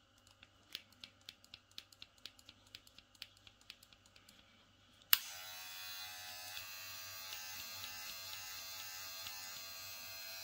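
A run of light clicks, about three a second. About five seconds in, a cordless hair clipper switches on with a sharp click and runs with a steady buzz, its blade freshly oiled.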